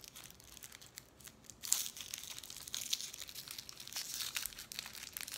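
Foil candy wrapper crinkling and tearing as it is pulled open by hand; the wrapper is glued shut. The crinkling eases briefly about a second in, then picks up again with a sharp crackle.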